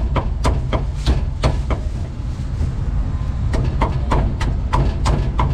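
Sharp knocks and clicks, irregular at about two to four a second, over a steady low rumble.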